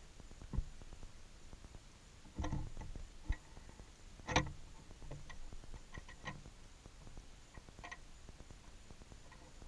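Light taps and knocks at uneven intervals, about a dozen, the strongest about half a second in and around four and a half seconds in: a New Caledonian crow probing a tree hole with a twig tool.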